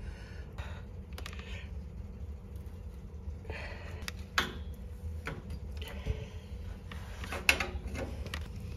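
Scattered metallic clicks and scrapes of an open-end wrench working the square stems of two stop valves on heating pipes, turning them shut to isolate a circulator pump, over a low steady hum.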